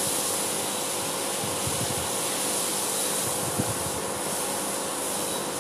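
Steady fan-like whooshing noise, with a few soft low thumps about two seconds in and again about three and a half seconds in.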